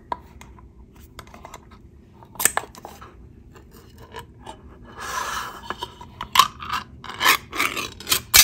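Ring-pull lid of a metal cat-food can being opened by hand. A sharp click comes about two and a half seconds in, then scraping and a quick run of clicks as the lid is peeled back around the rim.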